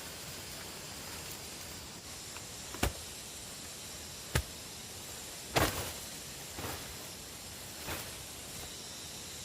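About five short, sharp knocks or cracks, spaced a second or so apart, the loudest about halfway through, over a steady hiss.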